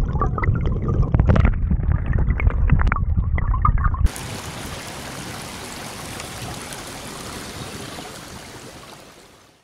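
Muffled water sloshing and gurgling with clicks, as a morel mushroom is rinsed by hand in creek water. About four seconds in, it switches to a steady, even hiss that fades out near the end.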